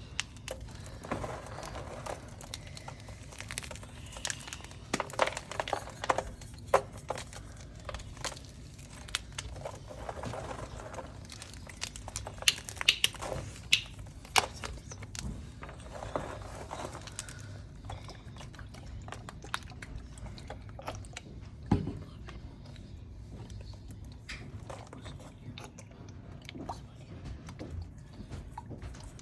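Hard blocks of dyed, dehydrated gym chalk being crushed and crumbled by hand, giving irregular crunches and crackles. The crunching comes in two busy spells, with one sharp crack about 22 seconds in.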